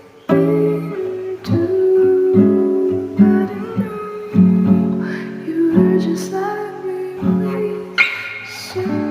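Acoustic guitar playing chords, struck roughly once a second and left to ring.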